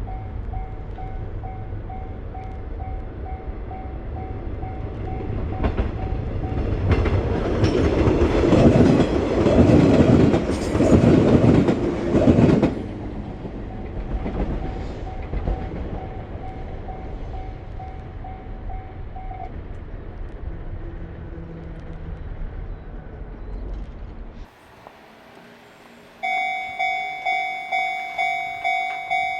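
Japanese level crossing bell ringing as a train passes, the wheels clattering loudly over the rails for about six seconds; the bell stops a few seconds after the train has gone. Near the end another crossing bell starts ringing loudly, about two strikes a second.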